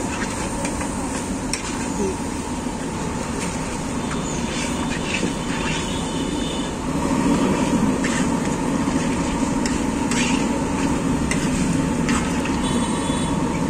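Busy roadside noise: a steady traffic rumble with scattered sharp metallic clinks, growing louder about halfway. A short vehicle horn beep comes near the end.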